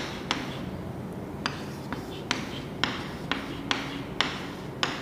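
Chalk tapping on a blackboard as digits are written: a string of short sharp taps, unevenly spaced at about two a second, over a steady low room hum.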